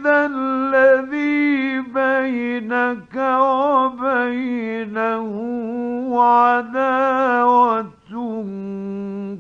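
A man chanting the Quran in the melodic mujawwad style, holding long ornamented notes that waver in pitch. He breaks off briefly about three seconds in and again near eight seconds.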